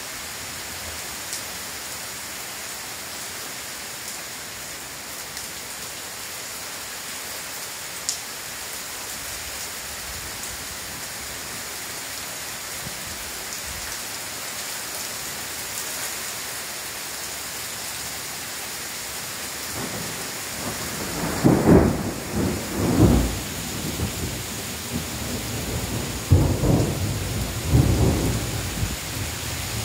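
Heavy rain falling steadily in a thunderstorm. About two-thirds of the way in, thunder rumbles in several loud peaks, coming back again near the end.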